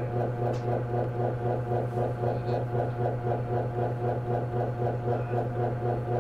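Dark ambient drone: a steady low hum under layered tones that throb evenly about three times a second.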